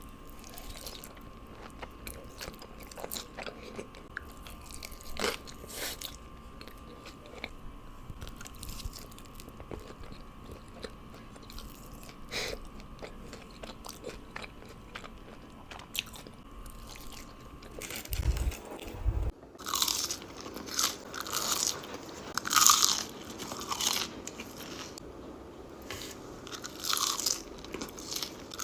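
French fries being bitten and chewed close to the microphone: scattered crunches and mouth sounds. About two-thirds of the way through the bites become louder and crunchier.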